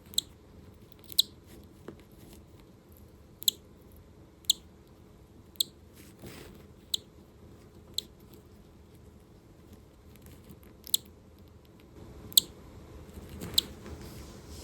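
Newly hatching cockatiel chick peeping: about ten short, high cheeps at irregular intervals, with faint rustling of handling in between.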